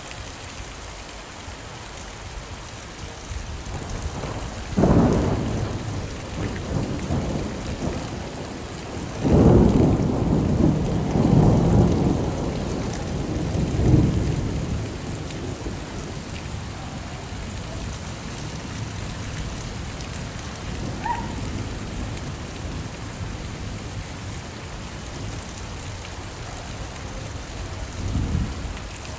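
Steady rain falling, with thunder: a sharp clap about five seconds in, a long rolling rumble from about nine to fourteen seconds, and a softer rumble near the end.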